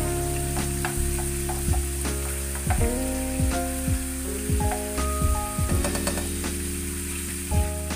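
Minced garlic and chicken pieces sizzling in hot oil in a frying pan as a spatula stirs the garlic, frying it toward light brown. Background music with a regular beat plays over it.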